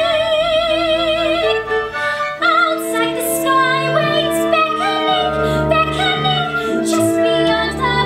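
Soprano singing a slow, sustained phrase in a classical musical-theatre style, holding several long notes with a wide, even vibrato over a soft instrumental accompaniment.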